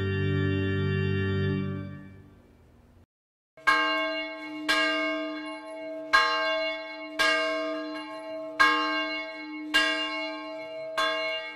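An organ holds a final chord with a pulsing tremolo that fades out about two seconds in. After a short pause a church tower bell rings seven times, about one stroke every second and a quarter, each stroke ringing on into the next.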